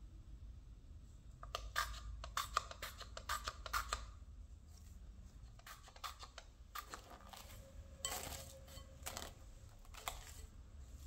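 Pump oil sprayer spritzing vegetable oil into a glass bowl, a quick run of short sprays and clicks for a couple of seconds. Later, plastic cling film crinkles as it is pulled and stretched over the bowl.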